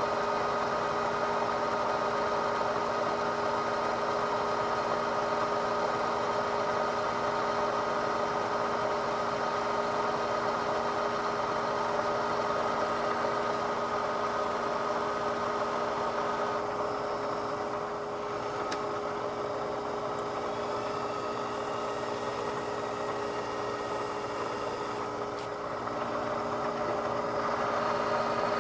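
Metal lathe running steadily with a constant hum made of several steady tones. About halfway through the tone changes and some pitches drop out for a while, then the first sound returns near the end.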